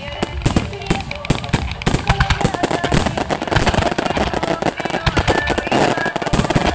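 Fireworks display: a dense, continuous barrage of aerial shells bursting, many sharp bangs every second.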